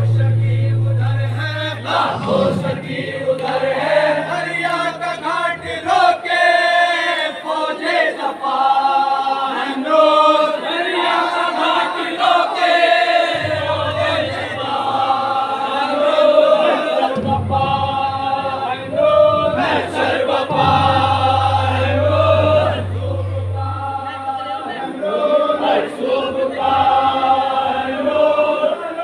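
A group of men chanting a nauha, a Muharram lament, together. A low steady hum comes and goes under the voices.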